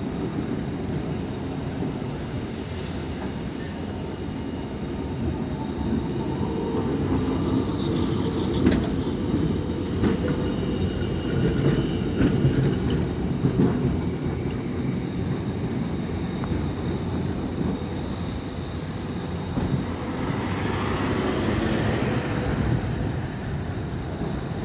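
Melbourne W2-class electric tram running on steel street rails: a steady rumble of wheels and running gear that grows as it passes close by about halfway through, with faint high tones while it is nearest.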